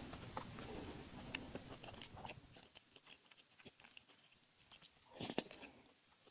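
Close-up mouth sounds of someone chewing soft, sticky glutinous rice balls: faint wet chewing and small mouth clicks that fade away after a couple of seconds, with one brief louder sound about five seconds in.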